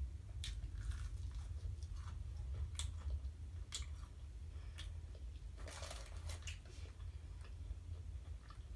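Crunching and chewing of a crispy-breaded KFC Nashville hot fried chicken wing, in scattered sharp crackles with a longer crackly crunch about six seconds in, over a steady low hum.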